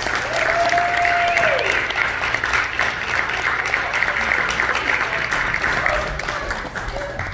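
Audience applauding. One voice gives a long, held call that falls away about a second and a half in, and the clapping thins out toward the end.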